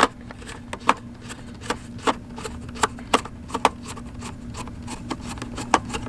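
Phillips screwdriver turning a screw out of the plastic back case of a FrSky Taranis X9D Plus radio transmitter: a run of small, irregular clicks with light rubbing, about two a second.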